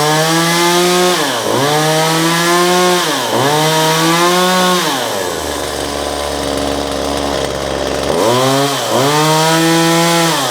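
Stihl MS 192T top-handle chainsaw's two-stroke engine being revved in repeated throttle pulls: three high revs with brief dips between, about three seconds of idle, then two more revs before easing off near the end.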